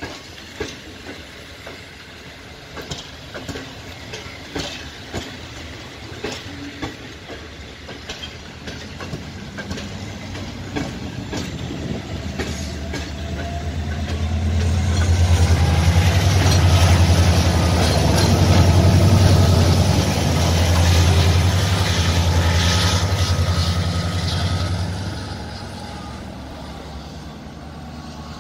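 Double-deck passenger coaches roll past with wheels clicking over the rail joints, then an LDE 2100 hp diesel-electric locomotive passes with its engine running loud, a low hum with a whine that shifts in pitch as it goes by. The engine sound fades near the end as the train moves off.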